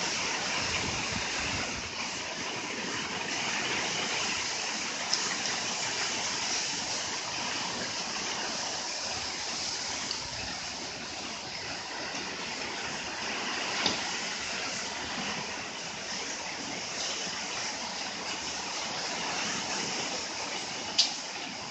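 Typhoon wind and rain making a steady rushing noise. Three short sharp knocks stand out, the last one near the end the loudest.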